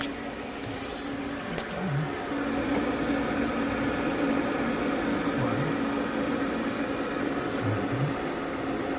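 Refrigerator's condenser fan, running on its new motor, giving a steady hum, with a few light clicks near the start and near the end.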